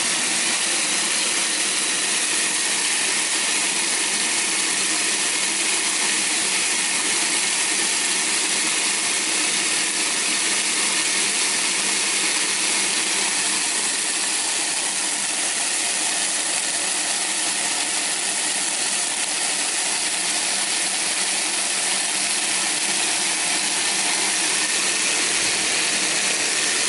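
Countertop blender motor running steadily at high speed, its blades grinding dry roasted yellow split peas into a coarse flour, with the hiss of the dry pieces churning in the jar.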